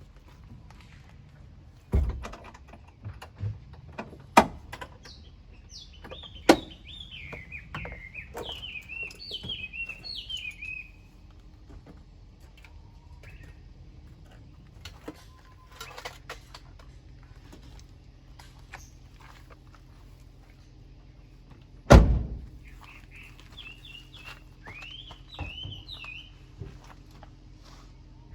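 Two heavy thunks about twenty seconds apart, with a few sharp knocks after the first. A small bird twitters in two short spells, and a faint steady hum runs under the second half.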